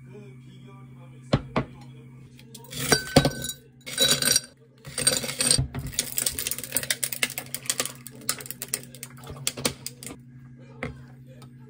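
Water poured from a plastic bottle over a glass packed with ice cubes, the ice crackling and clinking against the glass for about five seconds from about five seconds in. A few knocks and rustles come before it.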